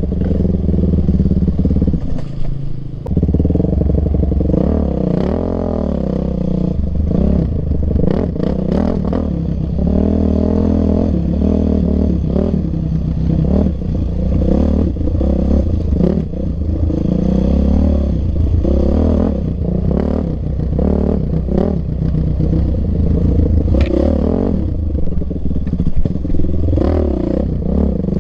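Yamaha YZ450F's single-cylinder four-stroke engine being ridden hard, its pitch rising and falling constantly with the throttle, with frequent knocks and rattles from the bike over rough ground.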